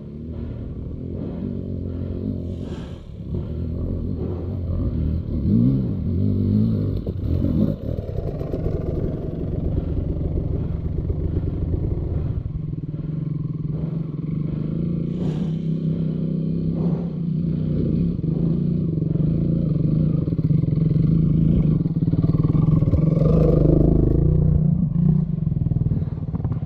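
Motorcycle engine running, the revs rising and falling at first, then settling into a steadier, louder note about halfway through, with occasional clattering knocks.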